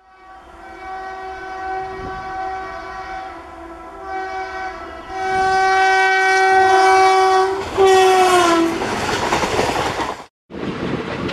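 Electric locomotive horn of an Indian Railways express giving several long blasts on approach. The horn's pitch drops as the locomotive passes close by. The roar and clatter of the coaches rushing past follows.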